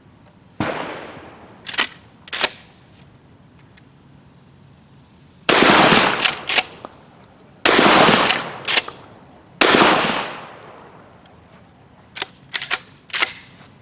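Remington shotgun fired: three loud blasts about two seconds apart, with a lesser bang near the start. Sharp metallic clicks of the action being worked come between and after the shots, the gun cycling and extracting properly now that its extractor has been fixed.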